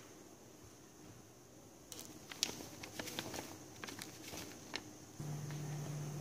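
Light, irregular clicks and taps of a utensil against a mixing bowl and a plastic margarine tub while margarine and powdered sugar go into the bowl. They cluster between about two and five seconds in, and a steady low hum comes in near the end.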